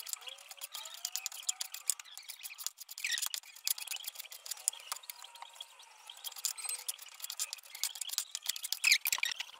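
Kitchen knife cutting raw chicken breast on a wooden cutting board, the blade tapping and clicking on the board over and over. A couple of short high chirps come about three seconds in and near the end.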